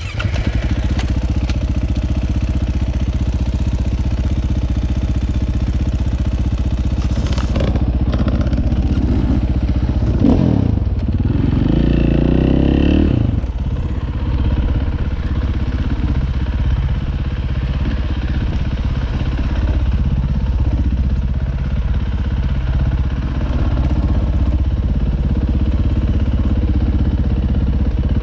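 Dirt bike engine running close to the microphone while riding a dirt trail. The revs rise and fall with throttle and gear changes, with a louder spell of revving about ten to thirteen seconds in.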